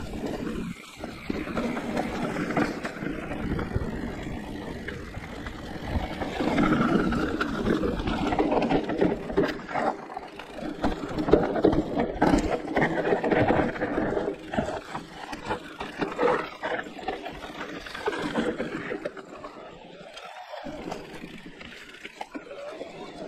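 Giant Reign E+ electric mountain bike ridden over a rough trail: tyres rumbling on the ground and the bike rattling and knocking, unevenly loud throughout.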